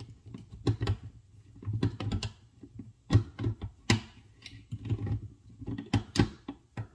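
Handheld crank can opener being turned around the lid of a steel can of green beans: a string of irregular clicks as the cutting wheel steps round the rim.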